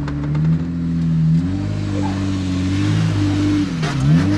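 Jeep Wrangler JK's engine pulling under load as it climbs a sandstone ledge, its pitch stepping up about a second and a half in, then dipping and rising again near the end as the driver works the throttle. A few sharp clicks come in at the start and near the end.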